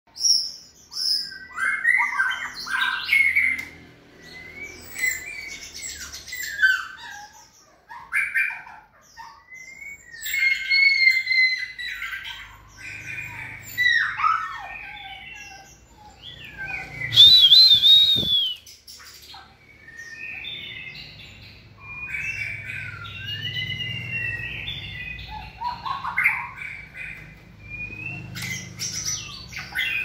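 White-rumped shamas singing: a varied run of whistled phrases, trills and harsh notes in short bursts, loudest about seventeen seconds in.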